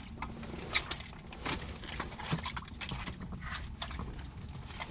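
Irregular light clicks and knocks, a few a second, over a low rumble: fishing gear being handled as a hooked crappie is brought up through the ice hole and its line tangles in the sonar transducer.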